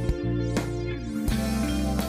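Background music: plucked guitar notes over sustained chords.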